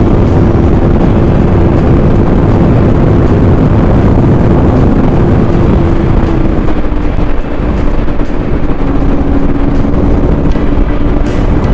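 Motorcycle riding at steady speed: heavy wind noise on the microphone over a steady engine drone, whose pitch drops slightly a little past halfway.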